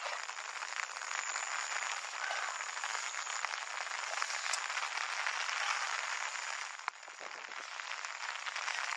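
Steady rain pattering on water and ground, a dense even hiss of countless small drops; it dips briefly about seven seconds in.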